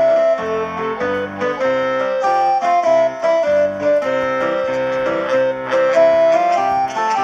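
Piano music played back through a pair of Vivitar stereo headphones as a sound test: a melody of quick notes over held chords.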